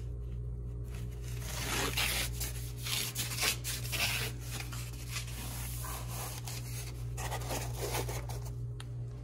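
Foam pipe insulation sleeve being slid and worked along a PEX water line, rubbing and scraping in irregular rustling bursts, over a steady low hum.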